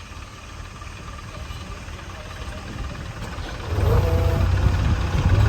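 Diesel engine of a JCB 3DX backhoe loader running low, then revving up sharply about two-thirds of the way in. A low rumble and a faint rising whine come in with the revs.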